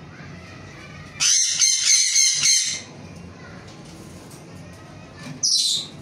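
Parrot screeching: a loud, harsh, choppy call of about a second and a half starting about a second in, then a shorter high call falling in pitch near the end.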